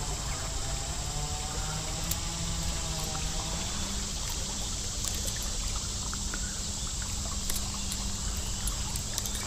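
River water trickling and running steadily.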